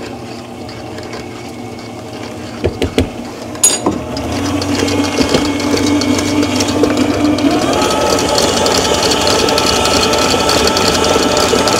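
Breville stand mixer running with a wire whisk, whipping mashed potatoes. A few sharp clicks come about three seconds in; the motor gets louder about four seconds in and its pitch steps higher about eight seconds in.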